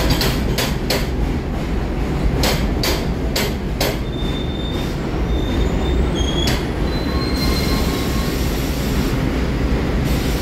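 Subway train pulling in and slowing to a stop, wheels clacking over rail joints in quick groups over a steady rumble. Then, from about four seconds in, several short high-pitched wheel squeals as it comes to a halt.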